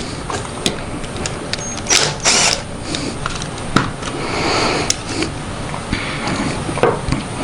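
Irregular clicks, knocks and scraping of hand tools and small metal parts as the float bowl is worked off a Honda mower carburetor on a workbench.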